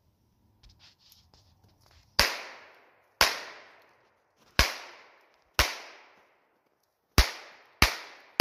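Revolver shots: six sharp cracks, the first about two seconds in, each followed by a ringing echo that dies away over about a second. A seventh comes right at the end. The shots come about a second apart, the last few quicker.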